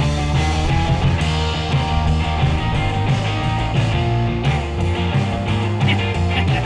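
Background rock music with electric guitar and a steady bass line.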